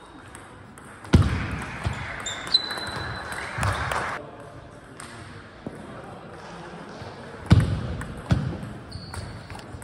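Table tennis ball hits ringing in a sports hall: a sharp hit about a second in, then after a quieter stretch two more sharp hits of a new rally near the end. Voices and general hall noise run underneath.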